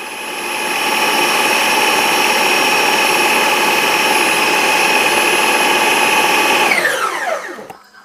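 Electric blender running steadily as it blends a strawberry milkshake thick with a whole carton of ice cream. About seven seconds in it is switched off, and its whine falls in pitch and fades as the motor spins down.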